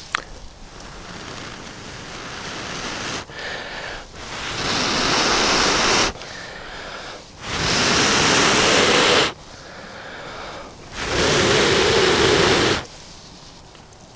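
A person blowing long, steady breaths into a dry-grass tinder nest around the glowing charred end of a rope lighter, coaxing the ember toward flame. A gentler swell comes first, then three strong blows of about a second and a half each with short pauses between.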